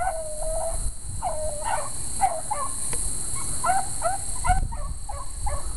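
Beagles baying on a rabbit's trail: a string of bawling, howl-like barks, the first one drawn out and the rest short, about two a second, the sign of hounds running the rabbit's scent.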